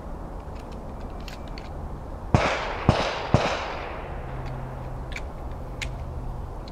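Three shotgun shots fired in quick succession, about half a second apart, each ringing out briefly.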